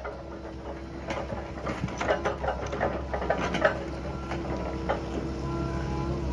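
Komatsu PC128US-10 hydraulic excavator running with a steady low engine hum, overlaid by irregular clicks and rattles of metal parts.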